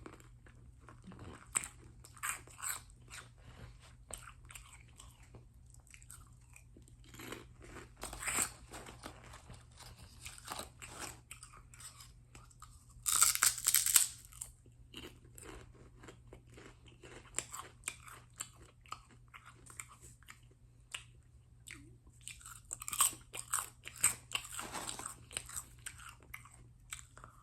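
Pork rinds crunching as they are bitten and chewed, a string of crisp crackles, with a louder bite about halfway through.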